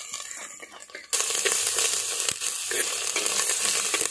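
Oil sizzling in a clay pot as snails, green chillies and ginger garlic paste fry, with a metal spoon stirring and scraping through them. The sizzle is quieter for the first second, then becomes loud suddenly.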